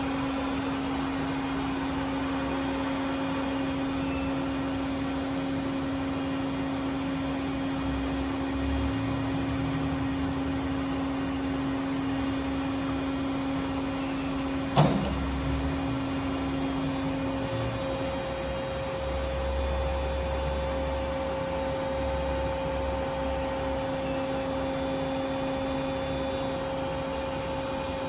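A machine tool's electric motor running steadily with a constant hum and whine, its pitch shifting slightly about halfway through. A single sharp knock sounds about 15 seconds in.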